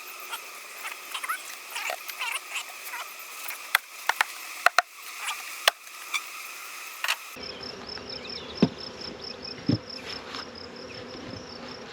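Honeybee swarm buzzing steadily, with a few sharp knocks about four to six seconds in. The background changes abruptly about seven seconds in.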